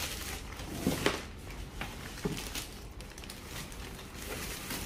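Clear plastic packaging bag rustling and crinkling on and off as it is worked off a newly unboxed appliance.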